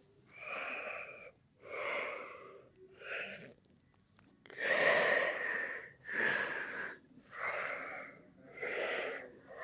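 A cartoon character's voice making a repeated series of breathy, wheezy 'ah… ah…' gasps, the build-up to a sneeze, about eight in a row with short pauses between them.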